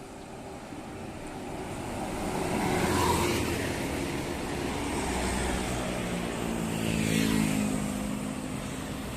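Road vehicles passing by, one after another: a low engine drone swells to a peak about three seconds in, eases, and swells again about seven seconds in.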